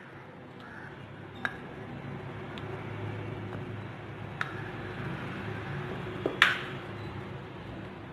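A kitchen utensil clinks against a metal kadai a few times, most sharply about six seconds in, while ghee is added to coconut milk in the pan. A low steady hum runs underneath.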